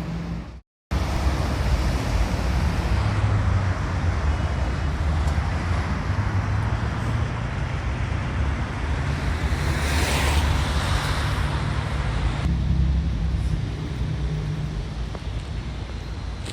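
Gusty wind buffeting the microphone: a loud, uneven low rumble with a rushing hiss, swelling in a stronger gust about ten seconds in. The sound drops out completely for a moment just under a second in.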